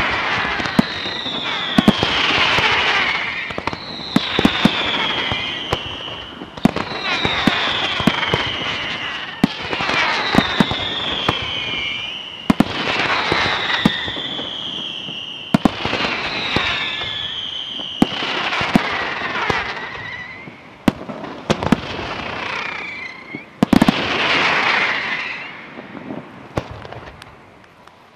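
Aerial fireworks display: sharp bangs and crackle from shells bursting, with a falling whistle every two to three seconds. The bangs thin out and the display quietens near the end.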